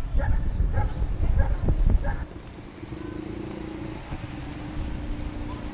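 Outdoor ambience of low rumbling gusts with a few short bird-like chirps, then, from about two seconds in, a steady low engine hum from a distant motor.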